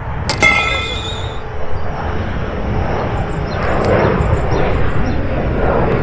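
Aircraft passing over: a steady rumble that swells in the second half. About a third of a second in, a sharp click is followed by a brief high ringing.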